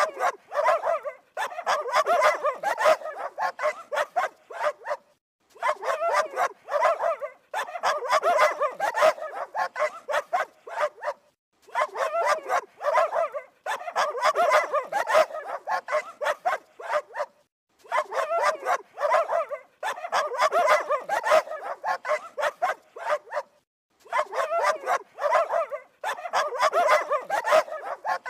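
Dogs barking in quick, continuous runs of sharp barks, each run lasting about five seconds and broken by a brief pause.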